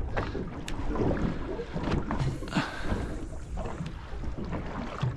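Wind buffeting the microphone and water slapping against a small boat's hull, with a few light knocks.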